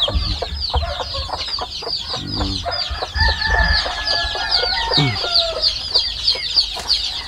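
Chicks peeping constantly in a dense run of short, high, falling peeps, several a second, with adult chickens clucking beneath and a longer drawn-out call about three to five seconds in.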